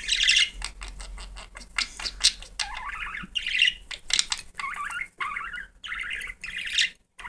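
Budgerigar chirping and chattering in quick short calls, mixed with many short clicks and rustles of wet lettuce leaves in a glass bowl as the bird bathes in them.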